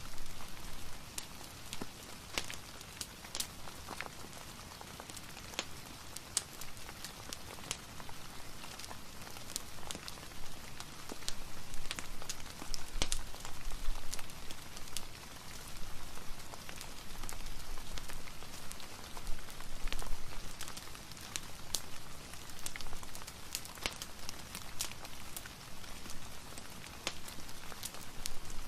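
Steady rain, a soft even hiss, mixed with a fireplace crackling: scattered sharp pops and snaps throughout.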